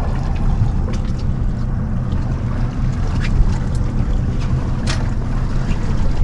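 Outboard engine idling on a drifting boat, a steady low hum, with wind buffeting the microphone and a few sharp clicks.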